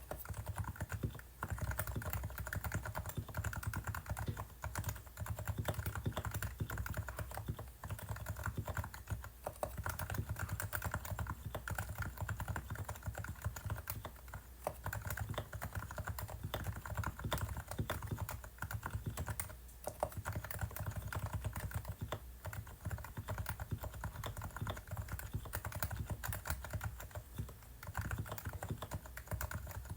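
Typing on a Realforce R2 silent 45 g Topre keyboard whose slider housings and springs are wet-lubed, stabilizers levelled and lubed with Permatex, and case dampened with Thinsulate: a steady run of keystrokes, typed lightly and slowly, with a few brief pauses.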